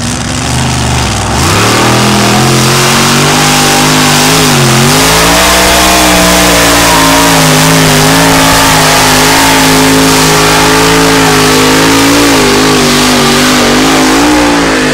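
Pulling tractor's engine at full throttle, hauling the weight sled down the track: a loud, steady engine note that climbs in pitch about a second in, dips briefly near five seconds, then holds with slight wavering.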